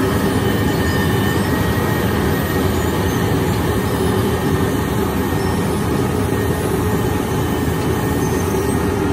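Wirtgen W 120 CFi compact cold milling machine cutting asphalt pavement, its diesel engine and milling drum making a steady, loud grinding noise with a constant tone running through it.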